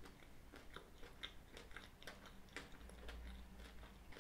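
Faint chewing of a mouthful of Cadbury Mini Egg tart, the pastry crunching in irregular small clicks.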